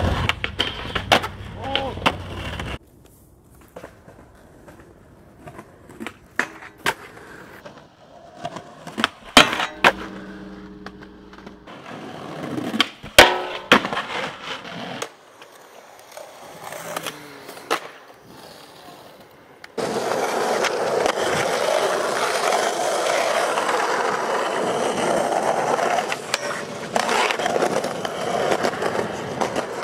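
Skateboarding on pavement: wheels rolling, with sharp clacks of the board popping and landing, spread across several short clips. From about twenty seconds in, a steady loud rolling noise of urethane wheels on rough asphalt.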